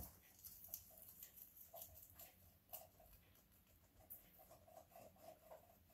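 Degu chewing fresh basil leaves: faint, quick crunching clicks of its teeth through the leaf.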